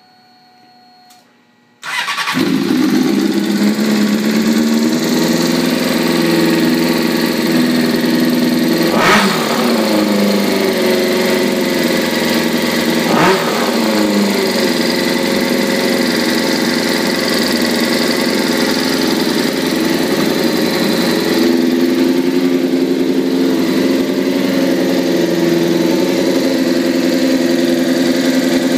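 Honda CBR600F4i motorcycle's inline-four engine starting suddenly about two seconds in, then running steadily at idle. The engine note briefly changes twice, about a third and half of the way through, and shifts again past the two-thirds mark.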